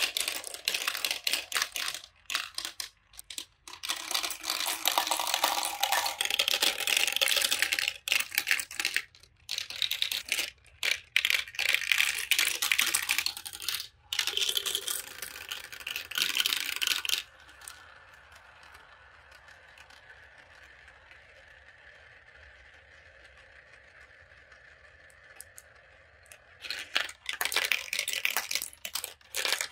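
Glass marbles clattering and clicking through a clear plastic marble run, dropping down tubes and rattling along curved chutes and past paddle wheels. About two-thirds of the way in the clatter stops, leaving only a faint steady hiss for about nine seconds, then the rattling starts again near the end.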